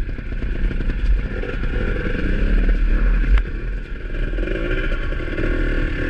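Dirt bike engine running at low speed, its revs rising and falling as the bike climbs a rocky creek bed. A single sharp click about three and a half seconds in.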